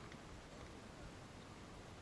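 Near silence: faint, steady outdoor background hiss with no distinct event.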